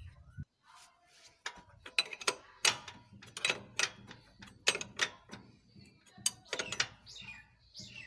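Steel spanner clinking and knocking on the drive-pulley nut of a TVS Ntorq 125 scooter's CVT as the nut is tightened: a string of sharp, irregular metal clicks.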